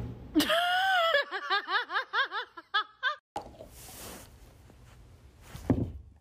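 A person's high-pitched giggling laugh: a quick run of short rising-and-falling notes, about four or five a second, lasting a little under three seconds before it cuts off.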